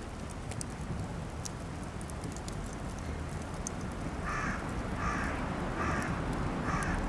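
Campfire of cedar offcuts crackling, with many sharp pops throughout. Starting about four seconds in, a crow caws four times, evenly spaced.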